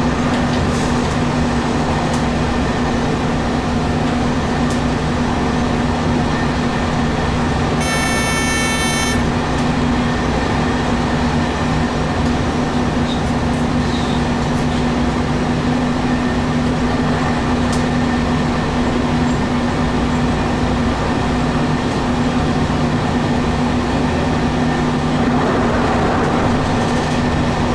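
JR Kyushu 817 series electric train heard from inside the front of the car, running at steady speed: constant rumble of wheels on rail with a steady electric motor hum. About eight seconds in, a brief high-pitched tone sounds for about a second.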